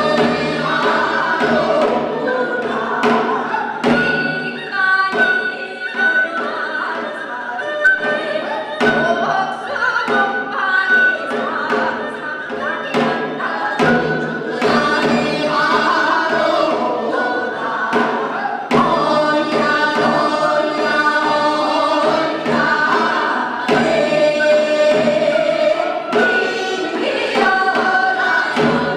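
A group of female singers sings a Korean traditional song together into microphones, accompanied by repeated strokes of Korean drums (janggu and buk).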